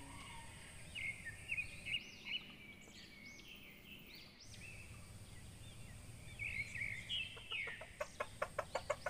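Faint birds chirping, many short rising-and-falling calls, and near the end a rooster clucking in a quick run that speeds up.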